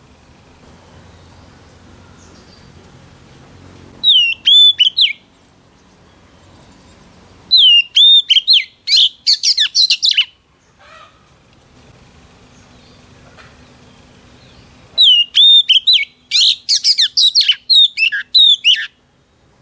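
Oriental magpie-robin singing in three loud bursts with quiet gaps between. Each phrase opens with a clear whistle and runs into quick, varied high notes. The first burst is short, and the later two are longer.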